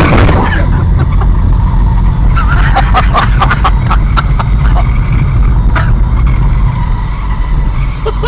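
Car driving: steady low road and engine rumble heard from inside a moving car, with faint muffled voices.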